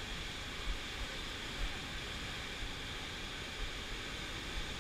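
Ocean surf breaking and foaming over a rocky shore: a steady, even rush of water noise, with small irregular low bumps from wind on the microphone.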